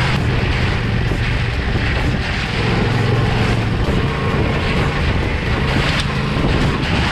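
Tyre ploughing through a muddy puddle, water spraying and splashing over the camera, with steady wind rush on the microphone and a low hum underneath.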